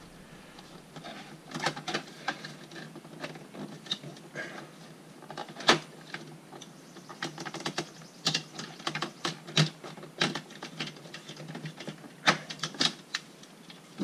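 Irregular plastic clicks and small taps as the inside door-handle trim piece on a 1996 C4 Corvette door panel is pried and worked loose by hand, with a few sharper clicks among them.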